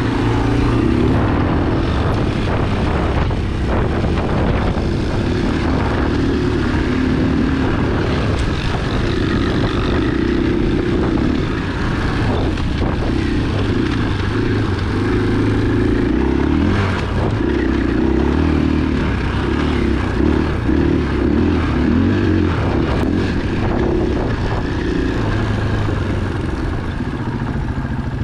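Single-cylinder four-stroke dirt bike engine running under way, its note stepping up and down several times with throttle and gear changes.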